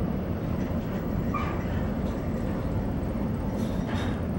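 Steady low rumble of a ferry's engines and machinery, heard from inside the passenger cabin.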